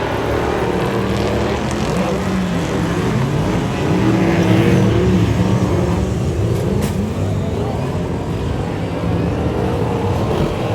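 Several race car engines running at speed on a speedway oval, several engine notes overlapping and rising and falling in pitch as the cars lap and pass.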